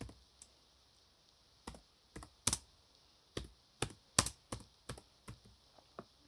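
Laptop keyboard being typed on: slow, uneven single keystrokes at about two or three a second, after a pause of about a second near the start.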